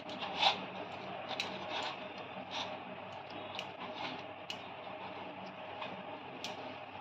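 Irregular light clicks and knocks of a utensil in a pan as cooked semolina dough is worked with ghee, over a steady hiss; the sharpest click comes about half a second in.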